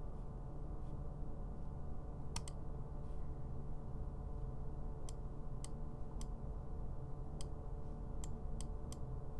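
Computer mouse clicking: a quick double click, then a string of about seven single clicks a second or so apart, over a steady low electrical hum.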